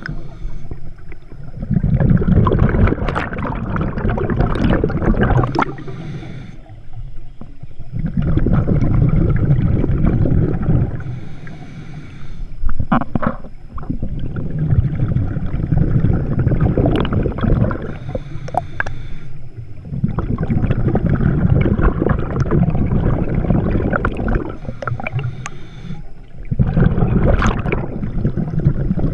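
Scuba diver's regulator breathing underwater: exhaled bubbles rush past in long, loud, gurgling bursts every few seconds, with quieter pauses between them where the diver inhales.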